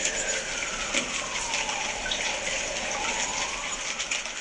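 Steady, loud rushing noise with a faint tone that slides down to about the middle and then back up, cutting in suddenly at the start and fading just after the end.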